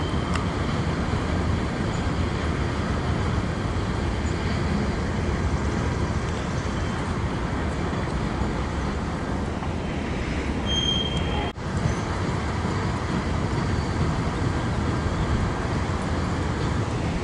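Freight cars of a CN train rolling across a steel rail bridge, heard as a steady low rolling noise from a distance. The sound drops out briefly about eleven and a half seconds in.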